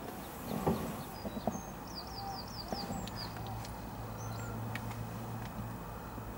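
Small birds chirping outdoors, including a quick run of about six high falling notes, with a louder, lower sound about half a second in. A low steady hum sets in about two seconds in.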